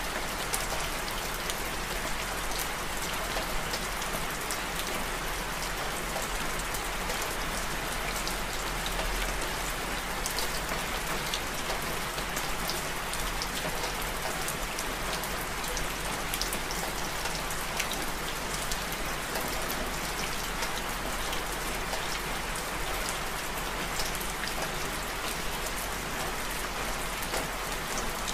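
Steady rain, with many single drops ticking close by.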